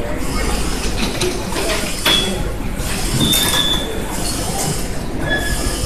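Steady mechanical din of a busy ferry pier entrance, with clicks and clanks of passengers going through the metal turnstiles and a few short high beeps from the gates' card readers.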